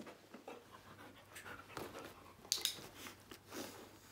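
A dog panting in a run of uneven breaths, with one brief sharp sound about two and a half seconds in.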